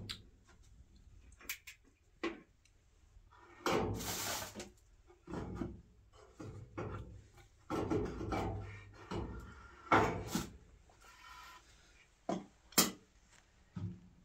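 Metal teapot and kettle being handled and set down by a tea tray: irregular knocks, scrapes and rubbing, a longer rustle about four seconds in, and a few sharp metallic clinks, the sharpest near the end.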